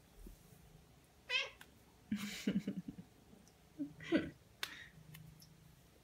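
A Ragdoll cat meowing, a few short calls spread over several seconds; the first falls in pitch.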